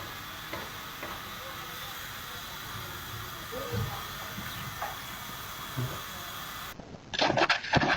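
A steady hiss of background noise with a few faint, brief sounds in it, cut off suddenly near the end by a man talking.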